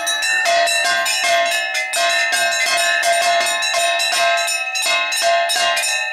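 Metal worship bells rung rapidly and continuously, about four strikes a second, their ringing overlapping, as during a puja.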